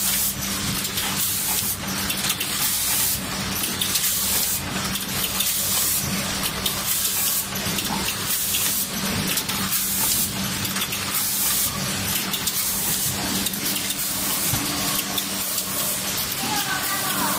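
Rotary pre-made bag packing machine running: a steady hum under repeated short hisses that come and go every second or so.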